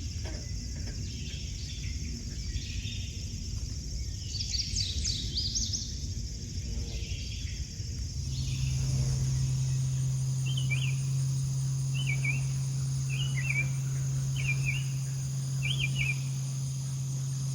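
Outdoor nature ambience with animal calls. A quick cluster of high chirps comes about four to six seconds in, then a short call repeats about every second and a half, over a steady low hum that begins about halfway through.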